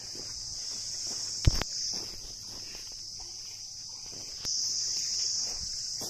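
A steady, high-pitched chorus of insects, swelling for about a second near the end, with one sharp knock about a second and a half in.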